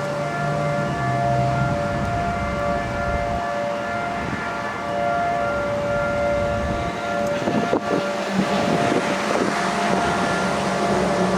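Federal Signal Model 5 mechanical outdoor warning siren sounding a steady wail at full speed during a test. Two pitches sound together as a chord.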